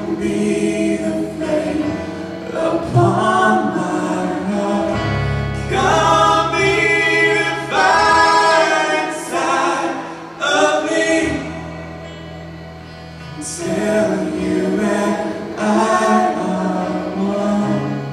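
Live contemporary worship band: voices singing a chorus over electric guitar, keyboard and held bass notes.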